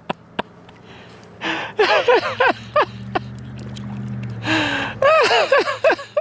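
Excited voices without words: quick bursts of high, rising-and-falling whoops or laughter, twice, with a long low steady 'ooh' between them. A couple of sharp clicks come near the start.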